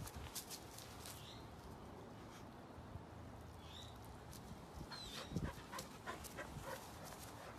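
Samoyed playing with a toy in the grass: soft dog sounds with a few short high whines, scattered clicks and rustles, and a louder knock about five and a half seconds in.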